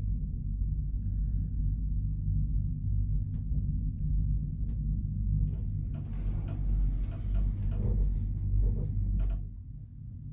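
Low rumble inside a moving gondola cabin, with scattered knocks and a stretch of rattling from about six seconds in; the rumble drops off sharply near the end.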